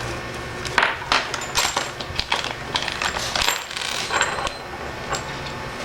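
Small metal connector parts clinking and rattling as they are handled and set down, a quick run of sharp clicks with brief metallic ringing over a steady low hum.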